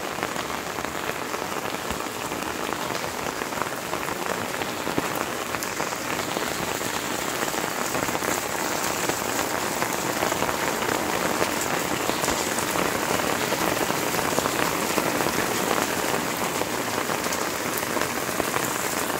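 Steady rain falling on wet stone paving and garden plants, an even patter of many drops.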